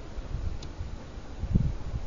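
Low, irregular rumbling noise on the microphone, with a louder low thump about one and a half seconds in.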